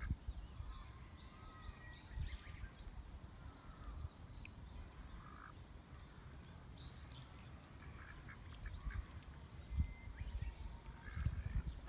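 Ducks giving short, soft calls at the water's edge, with low gusts of wind rumbling on the microphone.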